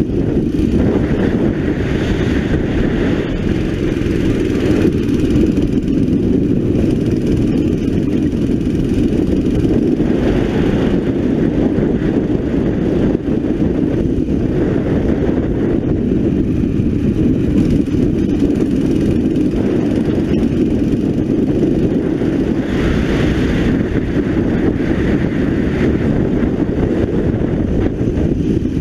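A 9 hp racing kart engine heard from on board, running continuously at speed around the circuit. Its sound brightens at a few points and eases between them as the throttle opens and closes through the corners.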